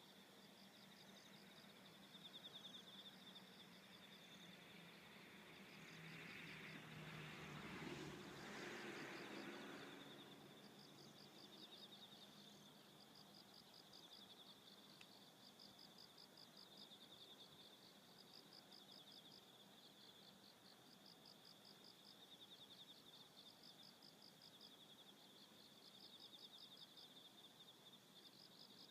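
Faint insects, crickets or katydids, chirping: a steady high trill with short pulsed chirps repeating over it. A broad rush of noise swells and fades away between about six and ten seconds in.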